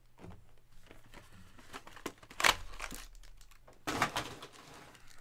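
Crinkling and rustling of a foil trading-card pack wrapper being handled, with two louder, sharper crinkles about two and a half and four seconds in.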